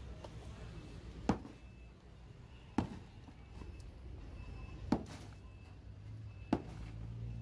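Sledgehammer striking a concrete curb, four heavy blows a second and a half to two seconds apart, knocking chunks of concrete loose.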